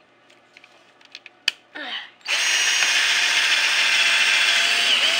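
Cordless drill boring a hole into a wooden board. After a sharp click, the motor starts a little over two seconds in and runs steadily with a high whine.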